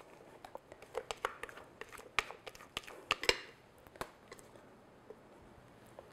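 A spatula scraping whipped cream out of a glass mixer bowl, with irregular light taps and scrapes against the glass, thinning out after about four seconds.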